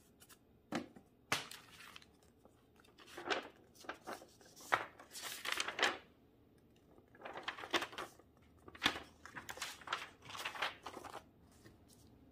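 Paper instruction sheets of a plastic model kit rustling and crinkling as they are unfolded and handled, in irregular bursts with short quiet gaps.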